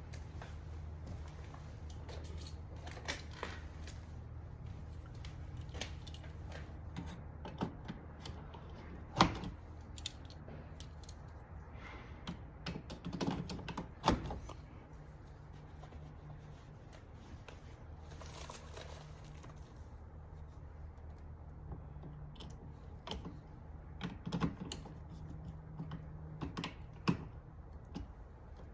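Scattered small clicks and taps of hands and tools working wires inside an electrical panel, the sharpest about a third and halfway in, over a steady low hum.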